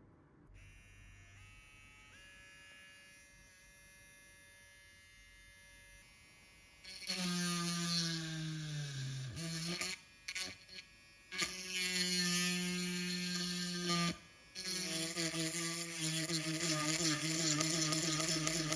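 Small handheld electric motor tool, such as a rotary tool, buzzing in three spells after a faint hum. About seven seconds in it starts, and its pitch sags about a second and a half later as it bears on the work. It stops briefly twice, restarting each time.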